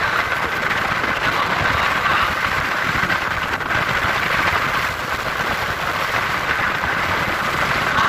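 A moving vehicle's engine and wind noise, heard steadily from on board while it travels.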